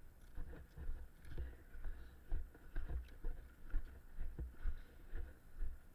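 Footsteps of a walking player, regular low thumps about two a second, with light clicks and rustle of clothing and gear.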